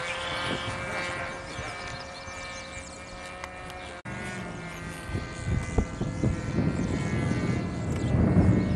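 RC model airplane engine running steadily in flight, a constant droning tone. After about five seconds, low rumbling and a few thumps on the microphone grow louder underneath it.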